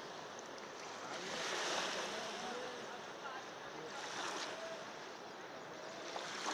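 Wainganga River floodwater rushing across a submerged road, small waves washing over it. The rush swells twice, about a second and a half in and again around four seconds in.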